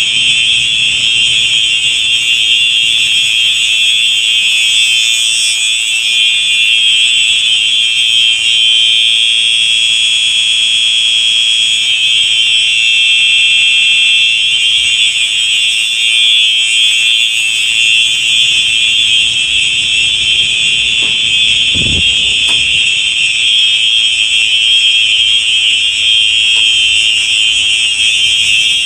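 Two Simplex 4903 electronic fire alarm horns sounding together in a steady, unbroken high-pitched tone. A brief low thump is heard about three-quarters of the way through.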